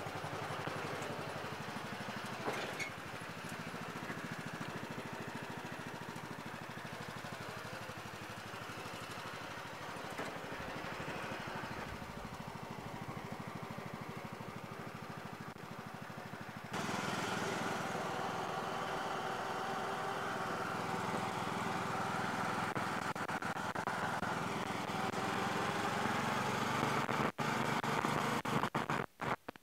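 Yard Machines lawn tractor's 20 hp Briggs & Stratton single-cylinder overhead-valve engine running steadily. It gets louder from about 17 seconds in as the tractor is driven, and the sound drops out briefly a few times near the end.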